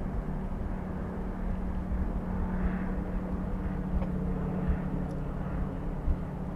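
Street traffic heard from a moving bicycle: a steady low engine hum over an uneven low rumble.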